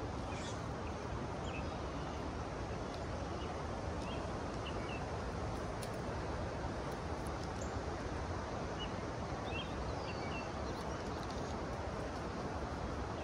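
Steady rush of river rapids, with short bird chirps scattered over it.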